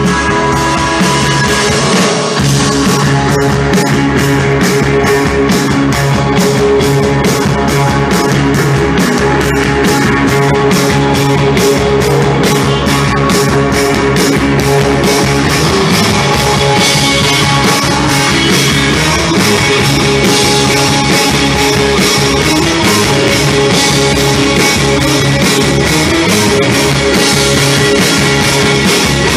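Psychedelic rock band playing live: electric guitars over a drum kit keeping a steady beat, loud and continuous, with no vocals.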